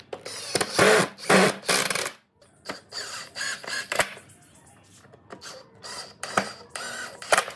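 Makita 18V cordless driver running in several short bursts, driving screws into wood, with pauses between screws.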